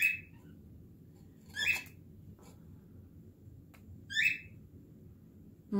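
Two short, high squeaks about two and a half seconds apart, each rising in pitch.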